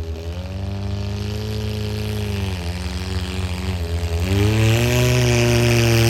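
Pulling truck's engine running, holding steady, dropping in pitch briefly, then climbing in pitch and getting louder from about four seconds in as it revs up.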